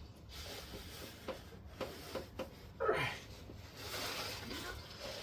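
A ratcheting breaker bar and socket being set on a tight fastener: a few light metal clicks, then about three seconds in a short creak that drops sharply in pitch as the fastener is strained.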